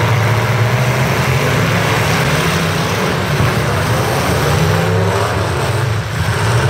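Engines of several demolition derby pickup trucks running loudly together, a steady low rumble.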